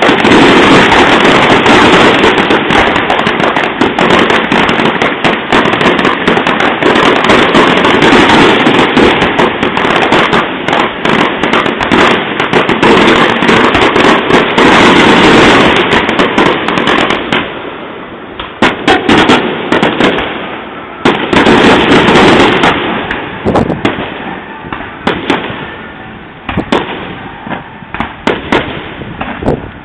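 Fireworks going off: a dense, continuous barrage of bangs and crackling for about the first half, then thinning out to separate bursts and pops, with another loud flurry a little past the middle and scattered pops near the end.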